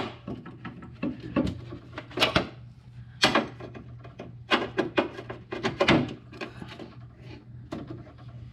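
Uneven metal clicks and knocks of a socket tool loosening two small bolts on a snowblower's sheet-metal back panel.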